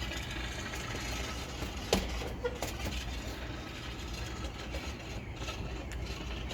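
Steady low outdoor rumble with an even background hiss, broken by a sharp click about two seconds in and a fainter one shortly after.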